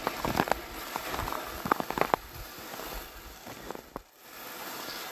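Snow crunching under footsteps: a quick run of crunches in the first two seconds, then fainter.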